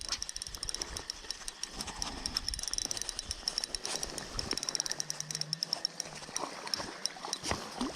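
Rain falling, with many irregular small ticks of drops over a steady hiss of rain and river water.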